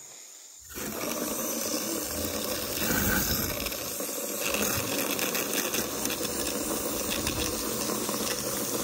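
Water from a garden hose spray nozzle running into the plastic tank of a water-gun backpack, filling it. The flow starts about a second in and then runs steadily.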